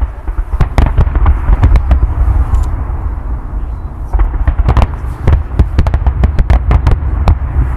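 Fireworks going off in rapid volleys of sharp bangs and crackles, over a steady low rumble. A quick flurry comes in the first two seconds, then a short lull, then a denser run of reports from about four seconds in until near the end.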